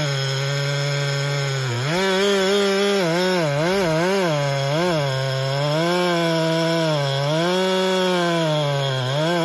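Gas chainsaw running at full throttle while cutting through the trunk of a large sweet gum tree. The engine note is lower for the first couple of seconds, then climbs and keeps dipping and recovering as the chain bites into the wood and bogs under load.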